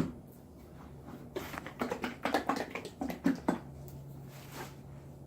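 A run of light clicks and rustles from takeout food packaging being handled, from about a second and a half in to about three and a half seconds, then a steady low hum.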